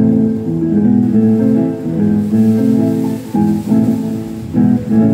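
Casio electronic keyboard played with both hands: a melody over chords, the notes changing quickly, with two short breaks in the phrase about three and four and a half seconds in.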